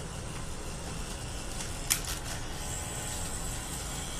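Low steady hum of a tattoo pen machine running, with one sharp click about two seconds in.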